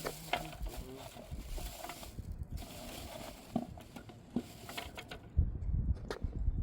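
Footsteps walking, with a rushing hiss through the first four seconds or so and a few heavier thuds near the end.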